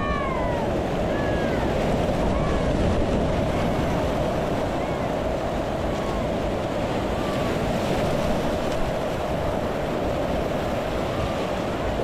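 Steady rush of churning whitewater around a canoe running a rapid, heard close from the boat, with wind buffeting the microphone.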